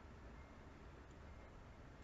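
Near silence: faint steady hiss and low hum of the recording's room tone.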